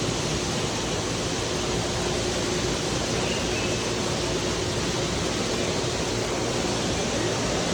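Steady rushing background noise with a faint steady hum underneath.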